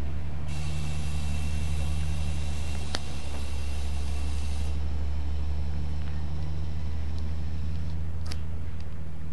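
A steady low mechanical drone, like a motor running at a constant speed. A high, hissing whine cuts in suddenly about half a second in and stops just as suddenly about four seconds later. A sharp click comes near the middle.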